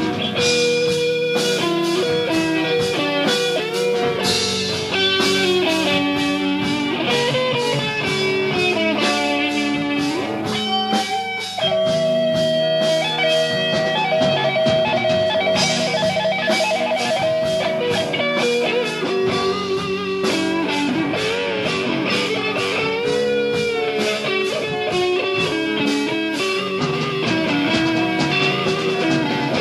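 Instrumental rock music led by an electric guitar, with one long held note wavering in vibrato about halfway through.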